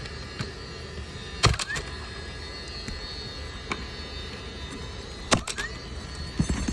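Roofing nails being driven into an asphalt shingle: several sharp strikes at uneven intervals, the strongest coming in pairs.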